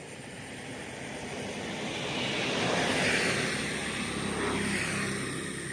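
Engine noise passing by, swelling to a peak about three seconds in and then fading.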